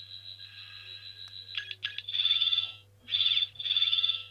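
Character Options 14th Doctor sonic screwdriver toy playing its electronic sound effects: a steady, fast-warbling high whine stops about one and a half seconds in. After a few clicks, a different effect follows in chirping bursts with short gaps between them.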